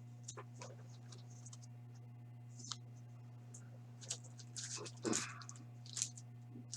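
Faint scattered clicks and rustles of trading cards and card packaging being handled, over a steady electrical hum. The clicks come mostly in the second half.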